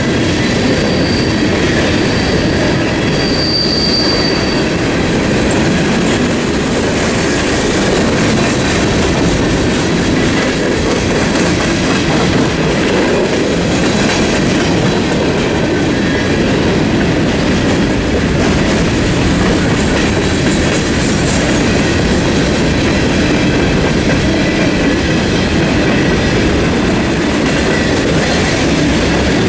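Coal hopper cars of a CSX freight train rolling steadily through a level crossing: a constant rumble of steel wheels on rail with clickety-clack over the joints. A thin, high wheel squeal sounds twice in the first few seconds.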